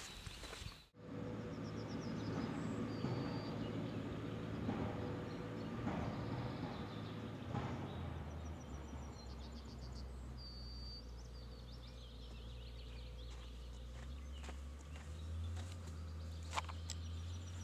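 Outdoor ambience: a steady low rumble with small birds chirping a few times, and one short knock near the end.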